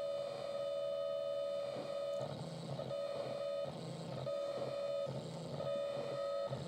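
Electronic instrument holding a steady droning tone with overtones. About two seconds in, a rhythmic pulsing pattern of roughly two beats a second joins it.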